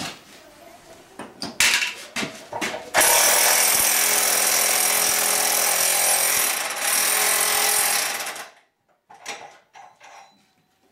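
Electric impact wrench hammering steadily for about five seconds, starting about three seconds in and cutting off sharply, as it runs a nut up a wall-anchor rod to pull a steel plate against the basement wall. The rundown slows as the nut gets tight. A few light knocks of the socket being fitted onto the nut come just before it.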